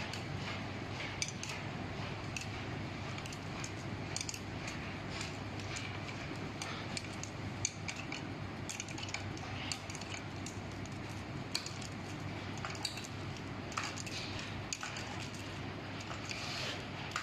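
Scattered light clicks and small metal clinks, as of tools and parts being handled, over a steady low hum.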